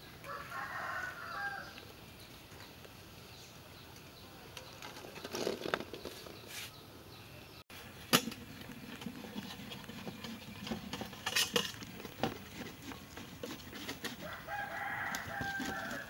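Two chicken calls, one just after the start and one near the end, each lasting about a second and a half. About eight seconds in there is a sharp clink, the loudest sound, followed by a few seconds of scraping and handling noise.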